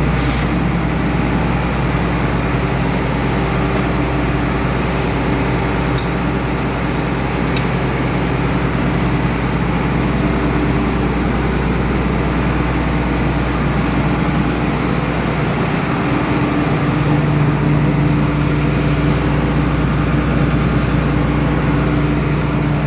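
Combine harvester's diesel engine and machinery running steadily with a low hum, which shifts slightly lower and louder about two-thirds of the way through.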